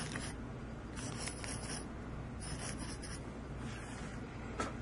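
Soldering iron tip scraped in a brass wool tip cleaner: three short, faint scratchy bouts, then a light click near the end.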